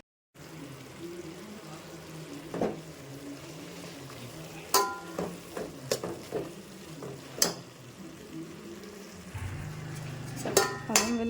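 Tomatoes and green peas frying in oil in a pan, with a steady low sizzle, and a few sharp metal clinks against the pan spread a second or more apart, one of them ringing briefly.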